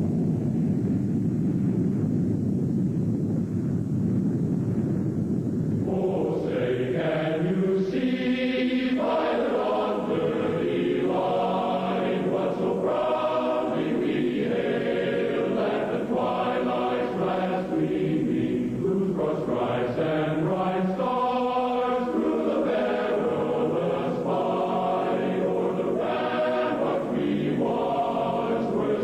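A low, steady rumbling noise, then about six seconds in a choir begins singing: the national anthem with which the emergency broadcast signs off.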